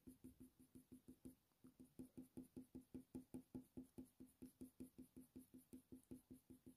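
Faint, rhythmic scratching of a Polychromos coloured pencil on hot-press watercolour paper as the nose is shaded in short back-and-forth strokes, about five a second, a little louder for a couple of seconds in the middle.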